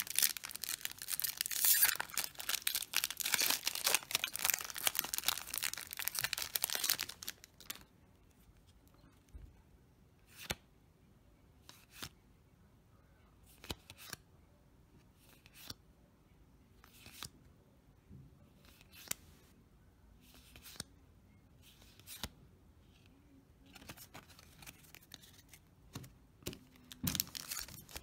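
A foil Yu-Gi-Oh! booster pack being torn open and crinkled for about the first seven seconds. Then trading cards are flipped through one at a time, a short soft flick about every second and a half. Near the end the foil crinkles again as the next pack is handled.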